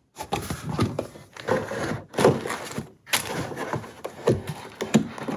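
A cardboard box being handled and pushed, making irregular knocks, thuds and scraping, with two brief dropouts.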